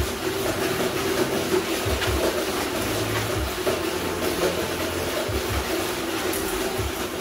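Steady mechanical hum with a few dull low thumps as a pit bull hangs and bounces on a spring pole tug toy.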